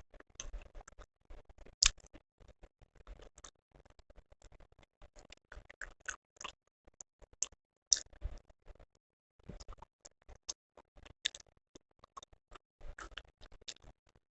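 Close-miked eating sounds: a person chewing, with a dense, irregular run of small mouth clicks and smacks. Louder sharp ones come at about two seconds and eight seconds in.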